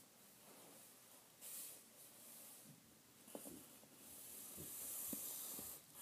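Faint scratching of a pencil writing on paper, in a few short stretches of strokes with pauses between.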